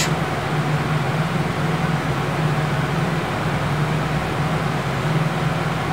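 Steady background hum and hiss, with no distinct events.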